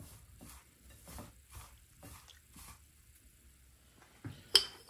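Fingers rubbing and tossing coarsely ground spice powder in a ceramic bowl: soft gritty rustling strokes, about two or three a second, that stop about three seconds in. A sharp knock follows near the end.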